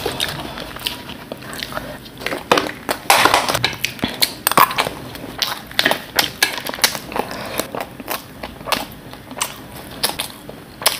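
Close-miked crunching and chewing of bhelpuri, crisp puffed rice and fuchka pieces, in a rapid, irregular run of sharp crunches, with the spoon scraping in the foil bowl.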